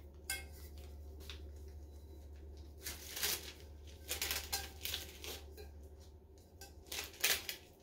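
Glitter-coated double-sided adhesive sheets crinkling and crackling as they are pulled apart by hand after sticking to each other, in a run of irregular rustles. A steady low hum runs underneath.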